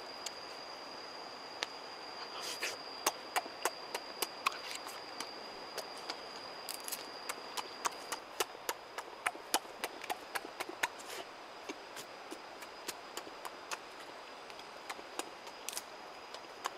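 Sharp wet clicks and smacks of dragon fruit being peeled and chewed, many in quick succession. Under them runs a steady high insect buzz that drops out about eight seconds in and comes back near the end.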